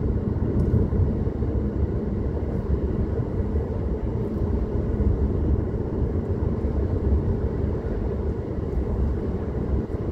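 Car driving steadily along a road: an even, low rumble of tyres and engine, with no change in speed.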